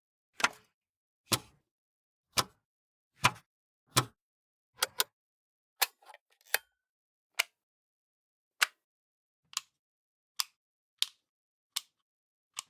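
Switches being flicked one at a time: a series of separate sharp clicks about a second apart, a few of them doubled. The clicks in the first half are heavier, with more low end, and the later ones are lighter and sharper.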